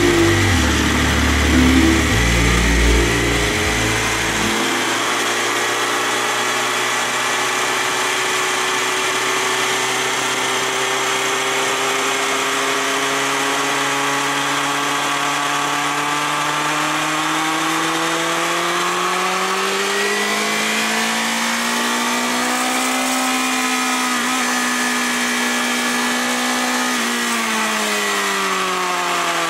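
BMW S1000RR's inline-four engine heard from an onboard camera, running at a steady, even pitch after a louder, choppy rumble in the first few seconds. About twenty seconds in the pitch rises, holds, then drops again near the end.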